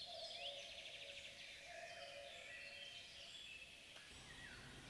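Faint forest ambience with small birds chirping, including a rapid trill in the first second or so and a few short falling calls.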